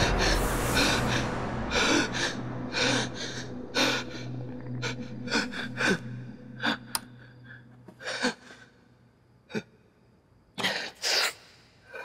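A young man breathing hard in sharp gasps after waking with a start, likely from a nightmare. The breaths come quickly at first and then space out, with two loud gasps near the end, over a low music drone that fades out.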